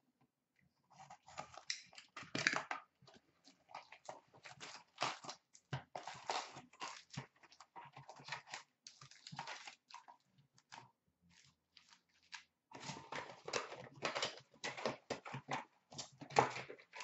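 Upper Deck hockey card packs' wrappers crinkling and rustling as the packs are handled, pulled from their box and stacked: an irregular run of crackles, with a brief lull about two-thirds through.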